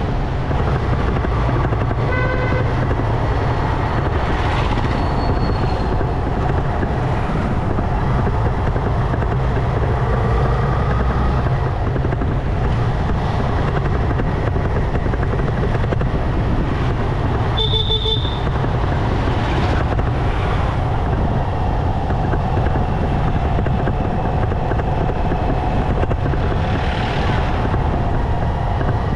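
A motorcycle running, with steady wind rumble on the microphone as it rides through traffic. Short vehicle horn toots sound about two seconds in and again around eighteen seconds.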